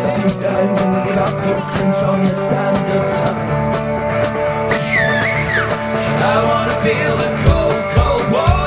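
Background music: a song with a steady beat and a singing voice.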